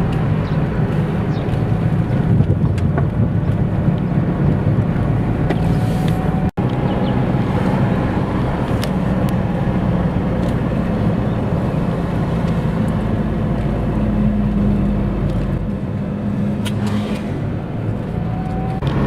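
Motor vehicle engines running with a steady low hum, with a brief dropout about six and a half seconds in.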